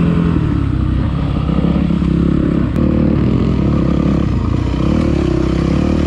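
Dirt bike engine running hard on a trail ride, its pitch rising and falling as the throttle is worked.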